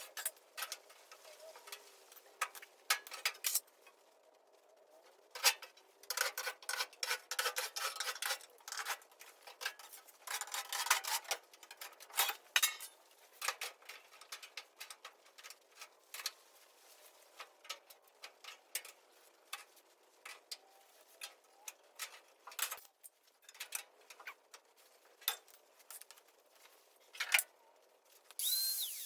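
Metal tools and parts clinking and clattering against sheet metal: a long, irregular string of light knocks and clanks, thicker in stretches, with a brief high squeak near the end.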